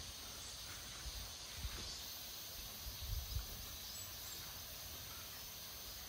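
Faint, steady drone of cicadas singing, over a low rumble, with a couple of soft thuds partway through.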